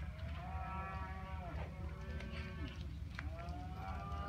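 Cattle in the yard bawling: three long, drawn-out moos, one after another.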